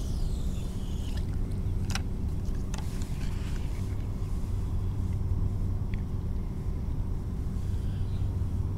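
Steady low rumble with a faint hum, broken by two sharp clicks about two and three seconds in.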